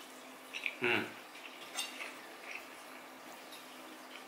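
A man chewing a big cheeseburger, with a short low grunt about a second in and a few light clicks of a knife and fork against a plate.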